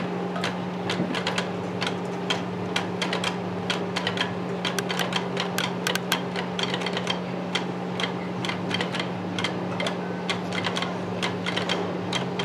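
Rapid, irregular sharp clicks, several a second, over a steady low hum.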